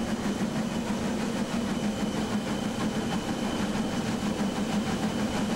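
Cab sound of class 01.5 steam locomotive 01 509 working up a steep grade: a steady, loud drone of the running engine and wheels on the rails, with a faint thin high tone above it.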